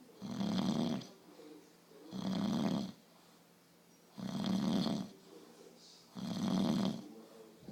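A person snoring: four loud snores in a steady rhythm, each just under a second long and about two seconds apart.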